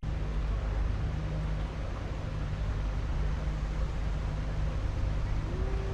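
Narrowboat's diesel engine running steadily at cruising speed, a constant low hum.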